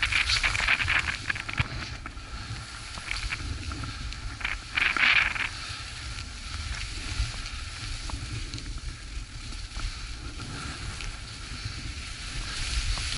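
Skis hissing and scraping over snow through mogul turns, over steady wind rumble on the microphone; the loudest scrapes come in the first couple of seconds and again about five seconds in.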